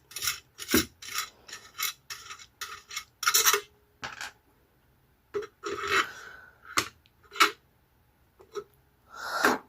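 Parts of a vintage gumball machine being handled and fitted together: an irregular string of short clicks, knocks and rubs of hard parts against each other, with a couple of brief pauses.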